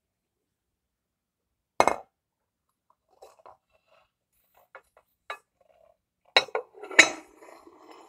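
Glazed ceramic STAUB baking dishes set down and knocked against a stone countertop: a sharp clunk about two seconds in, a few light clicks, then two more clunks near the end, the last and loudest ringing briefly.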